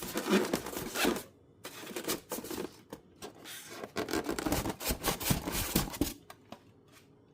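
Cardboard box and packaging being opened and handled: irregular scraping and rustling, thinning to a few light clicks near the end.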